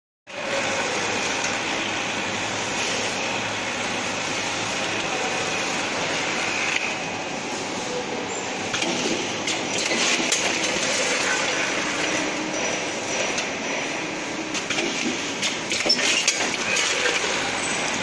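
Two-lane automatic packaging machine for chips running steadily, with scattered sharp clicks and knocks in the second half.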